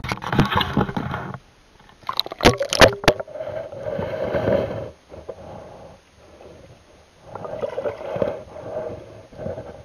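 Muffled water sloshing and churning around an underwater camera, in swells that come and go. A quick run of knocks against the camera housing comes about two and a half seconds in.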